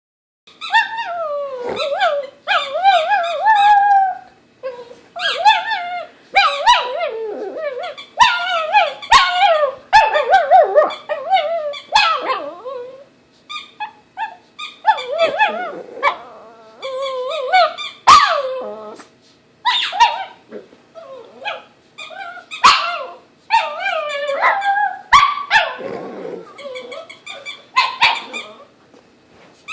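A dog barking, growling and whining in a long string of wavering, drawn-out calls that bend up and down in pitch, with short pauses between them: an agitated protest at a squeaky toy.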